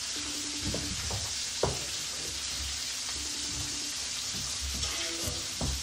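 Lamb chops sizzling in a frying pan, a steady hiss, with one sharp click about one and a half seconds in.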